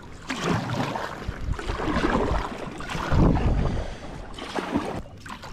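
Water splashing and sloshing around a kayak being paddled on a river, with wind on the microphone and a few low knocks against the hull around the middle.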